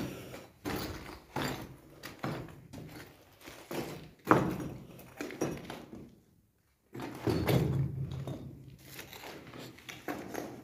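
Footsteps on a debris-strewn concrete floor, about one step every two-thirds of a second, pausing briefly about six seconds in.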